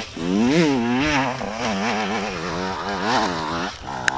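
Enduro motorcycle engine revving hard, its pitch rising and falling about twice a second as the throttle is worked. A sharp click comes near the end.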